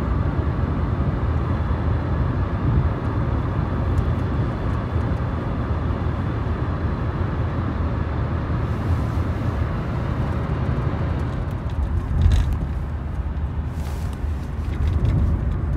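Steady road and engine noise of a moving car heard inside the cabin, strongest in the low end, with a few brief knocks near the end.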